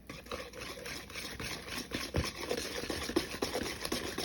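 Cake batter with yogurt being stirred by hand in a bowl: irregular wet scraping and clicking of the utensil against the bowl.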